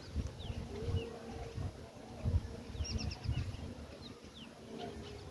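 Birds calling: a dove's low, drawn-out coo with short, high, falling chirps from small birds over it, all under a low, uneven rumble on the microphone.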